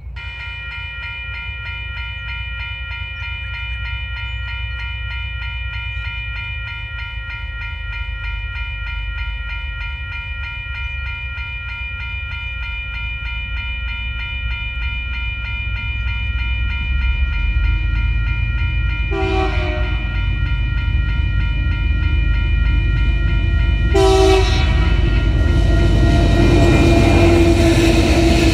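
Level-crossing warning bell ringing rapidly and steadily as the crossing lights come on. A diesel freight train approaches, sounding its horn in two short blasts about five seconds apart. The low rumble of the TasRail TR-class locomotives and wheels grows louder as they reach the crossing near the end.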